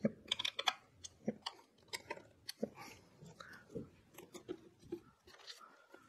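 Small irregular clicks, taps and scrapes of hand work on a computer part: a screwdriver on the CPU cooler's mounting screws and the motherboard and cooler being handled. The clicks come thickest in the first second, then thin out into scattered taps.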